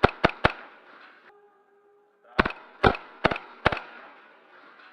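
Airsoft gas blowback pistol firing: three quick shots at the start, then after a pause of about two seconds four more shots about half a second apart.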